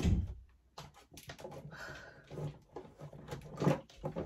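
A low thump, then a run of light clicks and knocks from objects being handled, the loudest about three and a half seconds in.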